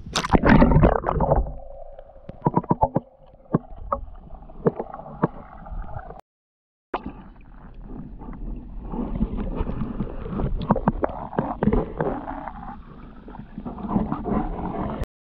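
Muffled water sounds picked up by a camera held underwater: gurgling and sloshing with many scattered knocks and clicks against the camera, loudest in a burst as it enters the water at the start. The sound cuts out for a moment about six seconds in.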